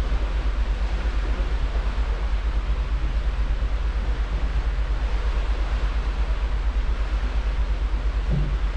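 Holland America cruise ship Koningsdam underway, heard from its stern: a steady deep rumble from the engines and propellers with the even hiss of the churning wake and air, plus a brief low sound near the end.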